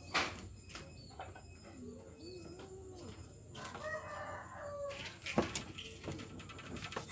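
A rooster crowing, one held call about halfway through, over the light clicks and scrapes of a small knife peeling potatoes. A sharp knock comes near the start and another about five seconds in.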